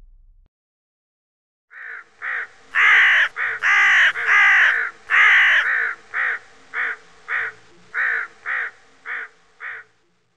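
A crow cawing: two short caws, then four long, loud caws, then a run of shorter caws, evenly spaced about every half-second and growing fainter.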